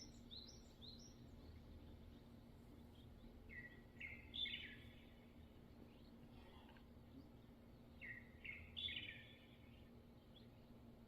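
An unidentified songbird singing in three short phrases of quick, rising chirps: one at the start, one about four seconds in and one about eight seconds in. A faint steady low hum runs underneath.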